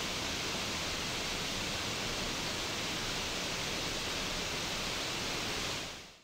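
Steady rushing water, an even bright hiss like a fast stream, fading out in the last half second.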